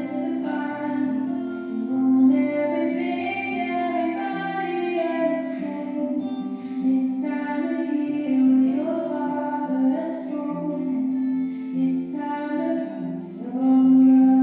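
Recorded music: a female voice singing a slow melody over sustained instrumental accompaniment.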